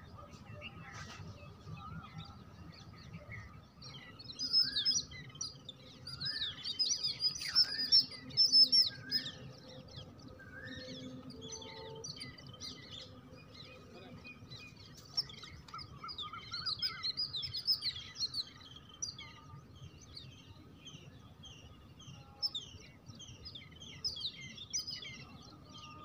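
Small birds chirping and twittering in quick runs of short high notes, busiest from about four to nine seconds in and again around seventeen seconds, over a faint steady tone.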